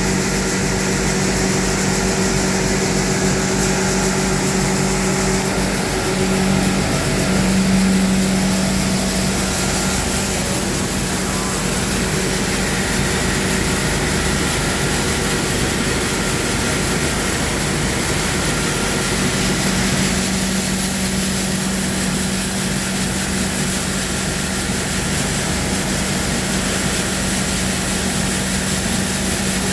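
A sutton coffee-processing machine running steadily: a constant motor hum over a wash of machinery noise, with a brief swell in level about eight seconds in.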